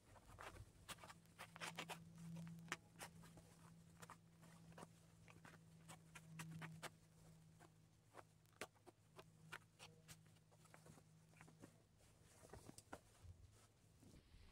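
Faint rustling and small irregular ticks of fabric being handled as gathering threads are pulled to gather a sleeve cap, over a low steady hum that stops about three quarters of the way through.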